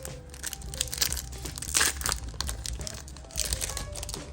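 Foil Pokémon trading card booster pack being torn open, its wrapper crinkling in a quick, irregular run of crackles.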